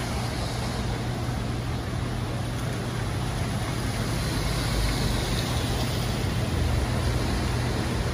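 Light rain on a city street, with cars driving through on wet pavement and their tyres hissing, over a steady low engine hum.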